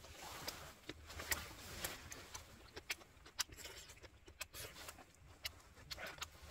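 Faint, irregular small clicks and crackles, a few a second, over a low background rumble.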